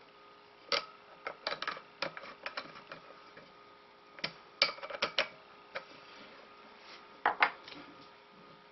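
Irregular light clicks and knocks of hands handling a metal tumbler held in a laser-engraver rotary attachment, coming in small clusters with a pair of louder knocks near the end.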